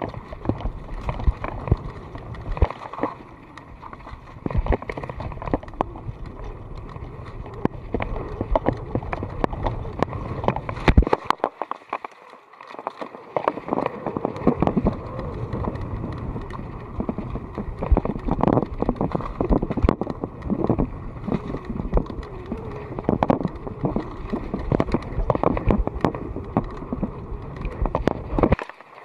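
Mountain bike riding fast down a leaf-covered dirt trail, heard from a camera on the rider: tyres rolling over dirt and dry leaves and the bike rattling with many quick knocks over bumps, with a steady low rumble. The rumble drops out briefly about twelve seconds in.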